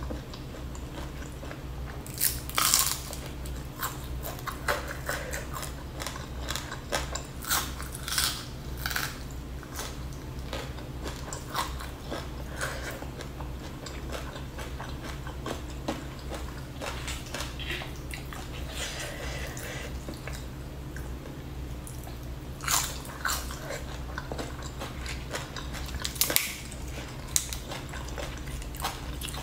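Close-miked mukbang chewing of rice, fried milkfish and raw greens eaten by hand: wet chewing with sharp crunchy bites now and then, over a steady low hum.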